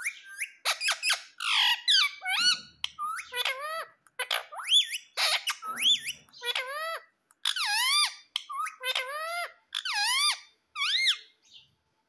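Indian ringneck parrot giving a rapid series of short, high-pitched squeaky calls, many of them swooping down and back up in pitch.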